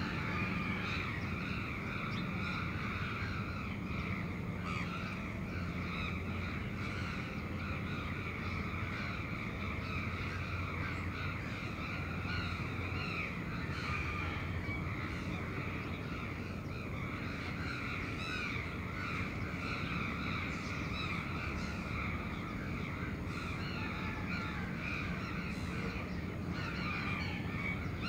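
Crows cawing repeatedly over a steady low hum of morning city traffic.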